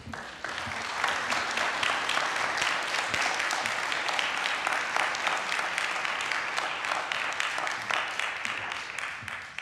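Audience applauding: a dense mass of many people clapping that swells within the first second, holds steady, and eases off near the end.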